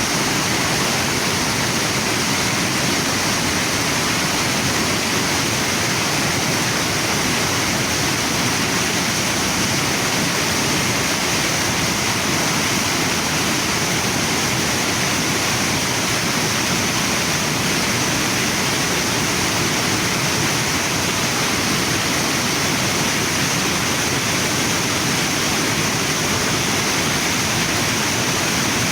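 Waterfall and river water rushing steadily, an even, unchanging wash of water noise with a bright hiss on top.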